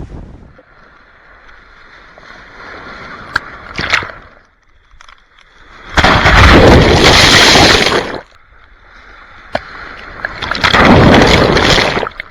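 Ocean surf breaking on the shore: two loud rushes of water, each about two seconds long, the first about six seconds in and the second near the end, with a quieter wash between.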